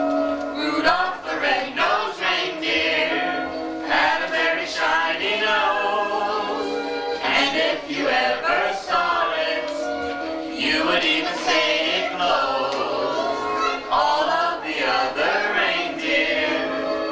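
A family group of adults and children singing a Christmas song together, mixed men's, women's and children's voices.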